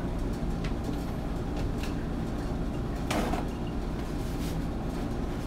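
Light knocks and clicks from handling things at a kitchen counter and sink, with one short scrape or rustle about three seconds in, over a steady low hum.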